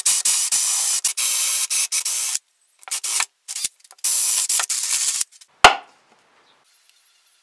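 A power drill with a spade bit boring into the wood of an old log, giving a hissy cutting noise in short bursts that start and stop abruptly. One sharp knock follows near the end.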